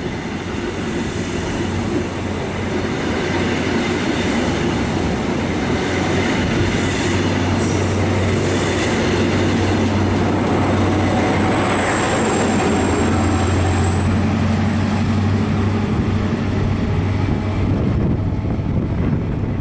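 High Speed Train with Class 43 diesel power cars pulling out and passing: a steady diesel engine drone with rolling wheel noise on the rails, swelling in the middle, and a thin high wheel squeal that starts just past the middle.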